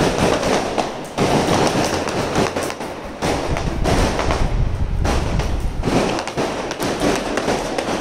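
Firecrackers going off in a dense, continuous crackle of bangs, swelling into louder bursts every second or so.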